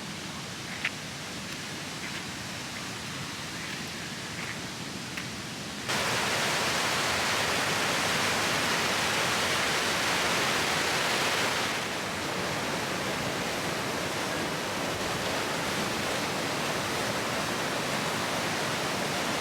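Waterfall on the Ram River rushing steadily, quieter at first with a few faint ticks, then jumping suddenly much louder and brighter about six seconds in and easing off a little a few seconds later.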